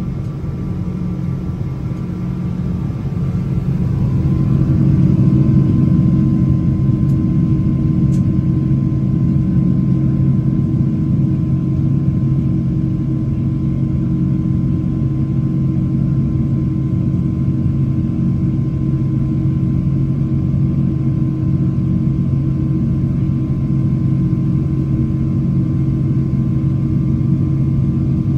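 Boeing 777-200ER's Rolls-Royce Trent 892 engines at climb thrust, heard inside the cabin: a steady jet drone with a thin high whine, growing louder over the first few seconds and then holding steady.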